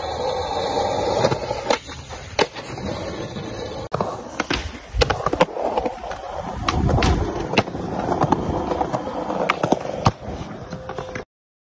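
Skateboard wheels rolling on concrete, with many sharp clacks as the board is popped and lands during tricks. The sound cuts off suddenly near the end.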